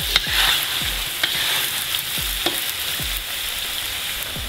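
Potato wedges sizzling in hot oil in a cast-iron kazan, with a steady frying hiss. A wooden spatula stirs them, giving a few scrapes and knocks against the pan.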